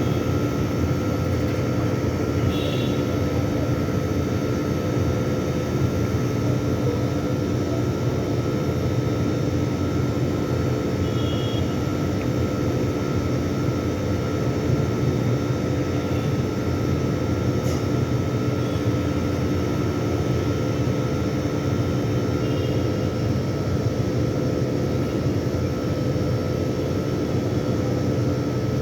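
Steady mechanical hum and rushing noise with a constant whine, unchanging throughout, and a few faint short chirps.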